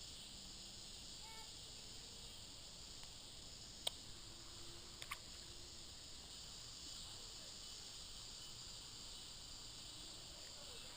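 Faint, steady high-pitched insect chorus, typical of crickets, with two sharp clicks about four and five seconds in.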